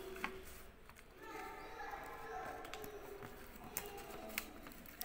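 Indistinct voices talking in the background, with a few sharp clicks from paper being folded and pressed on a tabletop.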